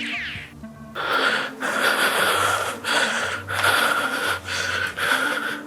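A person making a monster's noises: about six loud, raspy, wheezing breaths in a row, starting about a second in.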